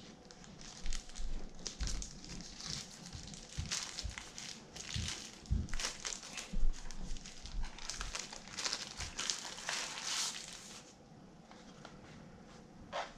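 Packaging crinkling and rustling in quick irregular bursts, with a few soft thumps, as the contents of a drone box are handled. It dies down near the end.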